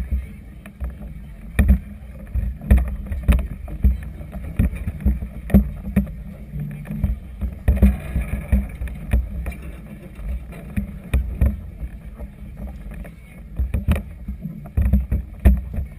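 Strong wind buffeting the microphone of a GoPro in its housing aboard a moored vessel on choppy water: a heavy low rumble broken by many irregular sharp knocks.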